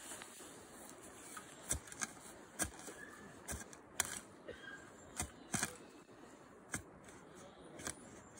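Hoe blade chopping into mossy forest-floor turf, cutting through the moss and roots: about ten sharp, irregular chops and snaps.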